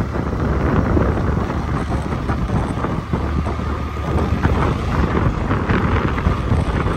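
Wind buffeting the microphone of a moving motorcycle, with a low rumble of engine and road noise underneath.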